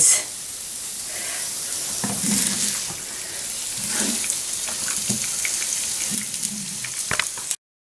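Chopped onions frying in melting margarine in a non-stick frying pan, sizzling with a steady hiss, with scrapes of a wooden spatula stirring them; the sound cuts off suddenly near the end.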